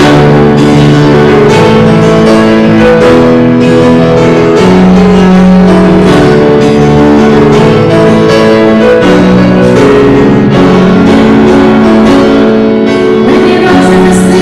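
Instrumental music with long held notes, starting suddenly out of silence.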